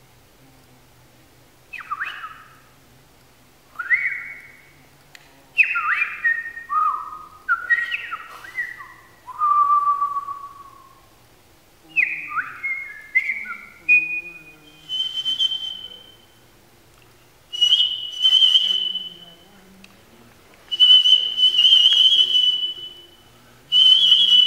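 Improvised whistle-like mouth sounds from a sound poet: clusters of short, pure, swooping notes that mostly fall in pitch, then from about the middle longer, higher held whistles with a breathy hiss.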